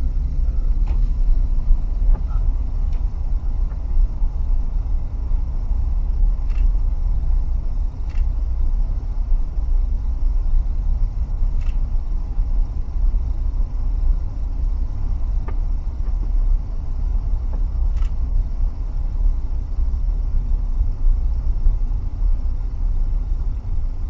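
Car driving slowly, a steady low rumble of tyres and engine heard from inside the cabin, with a few faint clicks.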